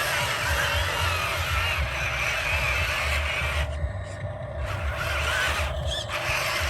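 Electric motors and plastic gearboxes of radio-controlled construction models whirring steadily, with a wavering whine. The higher hiss drops out briefly a little past the middle.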